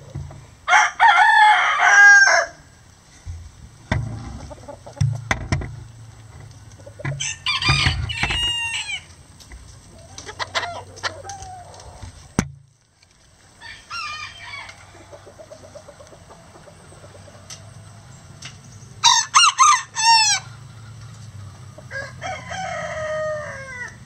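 Several roosters crowing in turn, about six crows in all: the loudest about a second in and about 19 seconds in, the others fainter and farther off. A few sharp knocks fall between crows.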